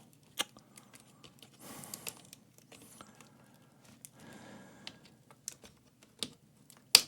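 Small sharp clicks and soft scraping of hand tools working at a corroded connector on a laptop motherboard that will not come out, with the loudest click near the end.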